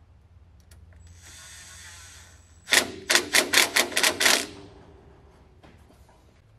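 Cordless impact driver fastening a small line bracket onto a suspension link: a short spin-up, then a quick run of about eight sharp rattling hammer bursts as the fastener seats and tightens.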